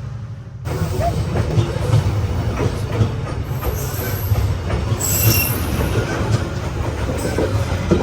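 A train passing very close: the steady heavy rumble and clatter of its wheels and cars on the track comes in suddenly under a second in. Brief high-pitched wheel squeals sound about four and five seconds in.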